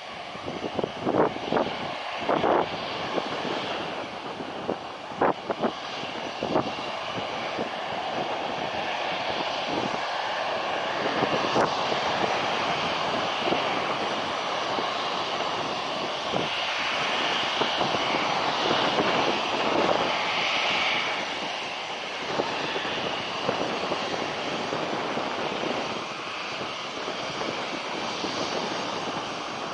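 Jet airliner's engines passing by, a broad rushing noise that swells to its loudest in the middle and then eases off. A few brief thumps sound in the first several seconds.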